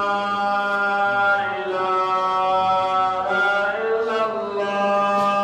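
A man's voice chanting in long, drawn-out held notes, the pitch shifting about a second and a half in and again near four seconds.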